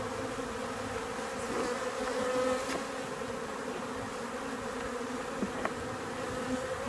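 Many honeybees buzzing around an opened hive: a steady, even hum.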